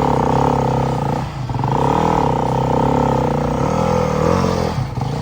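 Single-cylinder four-stroke dirt bike engine revving hard under load on a steep climb. Its pitch rises and falls as the throttle is worked, easing off briefly about a second in and again near the end.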